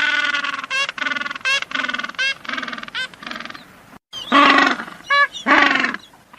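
An animal calling over and over in short, wavering cries, several to the second. There is a sudden break about four seconds in, and louder calls follow it.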